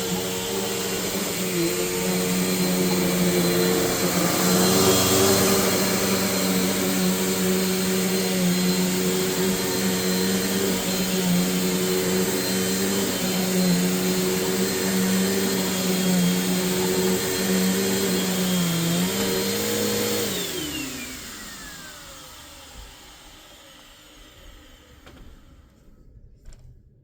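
Bissell PowerForce Bagless upright vacuum running steadily. It is switched off about 20 seconds in, and the motor winds down with a falling whine over a few seconds. A few faint clicks come near the end.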